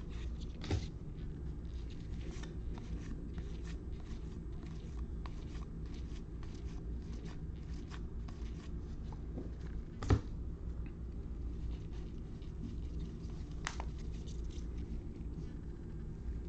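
Trading cards being handled and flipped through by hand: many light clicks and rustles, with a sharper tap about ten seconds in, over a low steady hum.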